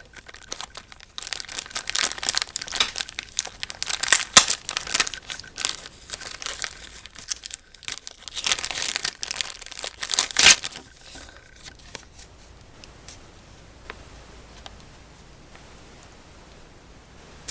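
A package being torn open and its packaging crinkled by hand, in irregular rustles and rips for about ten seconds, then only faint handling clicks near the end.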